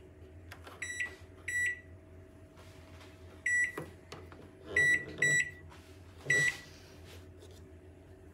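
Toshiba microwave oven's keypad beeping as its buttons are pressed: six short high beeps at uneven intervals, over a faint steady hum.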